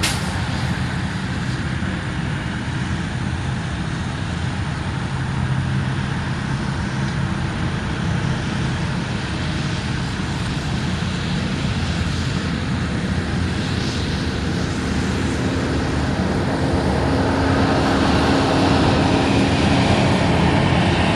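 Steady jet engine noise from a business jet taxiing at an airport, growing louder near the end, over a low steady engine hum from a truck close by.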